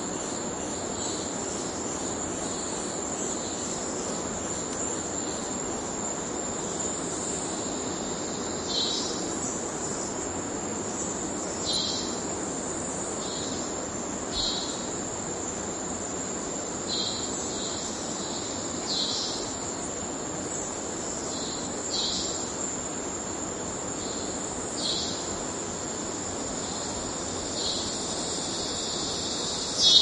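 Cicada singing: a steady high-pitched drone over a low, even background hiss. From about nine seconds in, short calls repeat roughly every three seconds, the loudest near the end.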